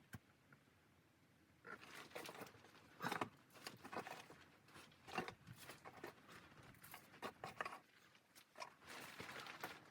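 Quiet, irregular crunching and rustling, starting about a second and a half in after a near-silent moment.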